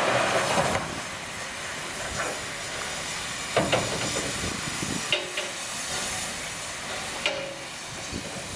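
Steam locomotive hissing steadily while being coaled, with a louder rush of coal sliding from the tipped tub into the tender at the start and a few sharp metallic clanks from the coal tub later on.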